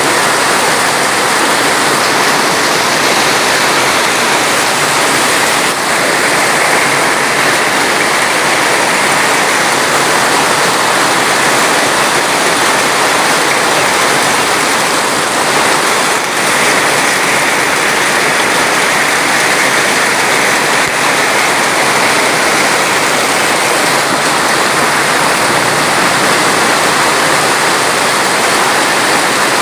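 Water rushing steadily: a loud, even, unbroken hiss with no separate drops or splashes standing out.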